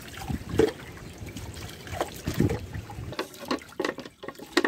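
Dishes being hand-washed in a concrete sink: soapy water sloshing and splashing over plates and glasses, with a few short clinks and knocks of glassware and crockery.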